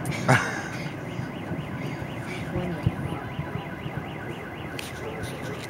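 Car alarm wailing, a fast rising-and-falling tone that repeats about four times a second. A single distant firework bang comes about a third of a second in.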